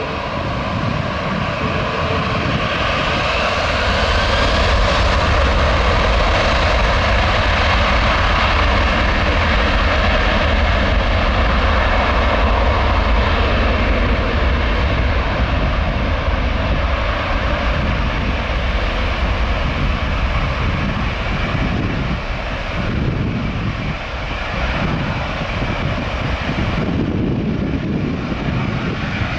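Twin jet engines of a KLM Airbus A330-200 at takeoff power during its takeoff roll: a loud, steady roar with a deep rumble underneath.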